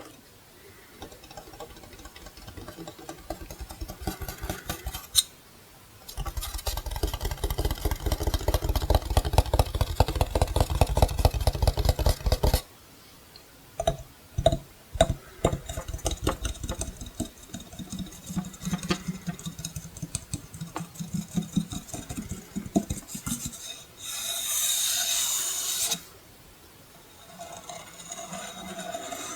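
A wall clock's metal and plastic casing being tapped, scratched and rubbed by hand. Scattered taps give way to a long stretch of fast scratching strokes, then more taps, with a brief hissing rub late on.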